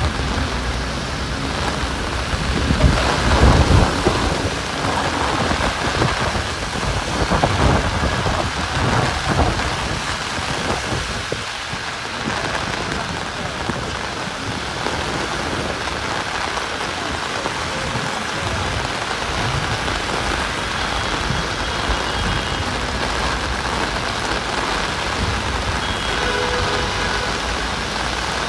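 Heavy rain falling steadily, a dense hiss, with louder low swells about three seconds in and again around eight seconds.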